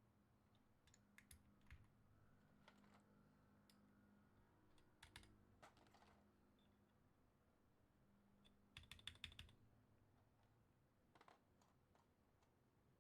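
Faint typing on a mechanical keyboard fitted with Maxkey SA-profile keycaps: scattered single keystrokes, with a quick run of about half a dozen about two-thirds of the way through.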